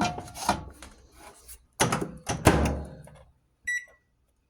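Microwave oven door being shut with a few thunks, then a single short high keypad beep about three and a half seconds in as the cooking time is set.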